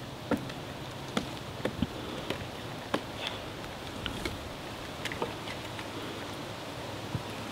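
Dry sticks and branches knocking together and snapping as an armful of firewood is gathered: irregular sharp clacks and cracks, about a dozen in all, over a steady low background noise.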